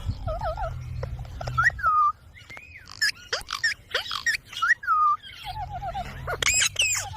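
Ringneck parrot calling in a varied run of chirps and whistles: quick warbling trills, short falling whistles, sharp sweeping squawks, and a few high shrill notes near the end.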